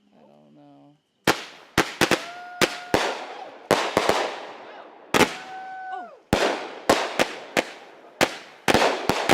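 Consumer fireworks going off: a rapid, uneven series of sharp bangs with crackling tails. Two whistles hold a steady pitch and then drop.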